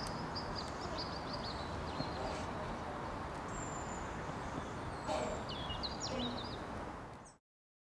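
Outdoor ambience: small birds chirping in short high calls over a steady background noise. It fades out quickly near the end.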